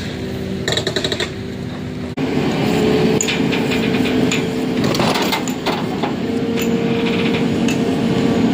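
Hitachi excavator's diesel engine running with a steady hum, under scattered metallic clinks and knocks. The engine gets louder about two seconds in.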